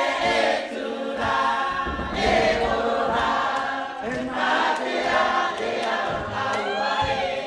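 A group of voices singing together in phrases, a man's voice strong among them.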